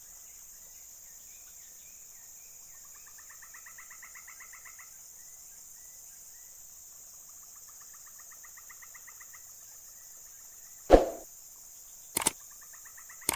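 Steady high insect drone with a bird singing two runs of rapid trilled notes, then a sharp knock about eleven seconds in and a shorter one a second later.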